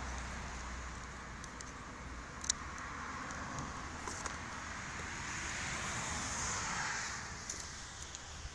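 A car passing on the road, its tyre and engine noise swelling to a peak and fading away, with a few light clicks from handling a phone and its cardboard box.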